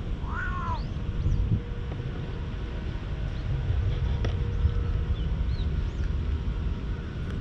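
Wind buffeting the action camera's microphone as a steady low rumble. About half a second in comes one short call that rises and falls, and a few faint, high, brief chirps follow later.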